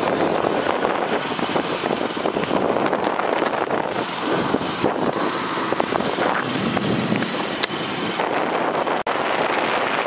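Steady rushing noise of wind on the microphone, with vehicle or traffic noise underneath. A single sharp click comes about three quarters of the way through.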